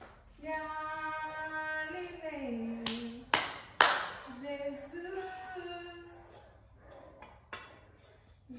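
A person singing a slow tune in long held notes, twice broken off, with two sharp clacks in the middle and a softer one near the end.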